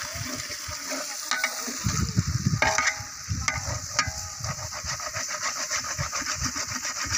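A tomato and onion mixture sizzles steadily in a metal pot over a wood fire. A metal spatula scrapes and knocks against the pot several times in the first four seconds as the mixture is stirred.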